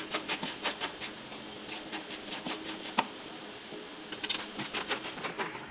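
Hand ratchet clicking in quick, irregular runs while bolts holding a van's front panel are loosened, with one sharper click about three seconds in.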